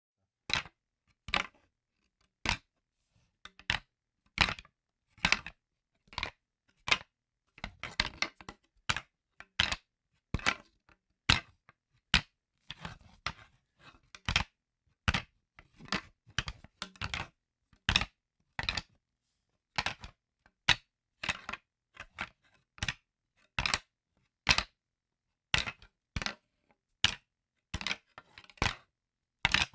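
Wooden sticks clacking together in a long run of separate sharp knocks, irregularly spaced, some single and some in quick doubles and clusters.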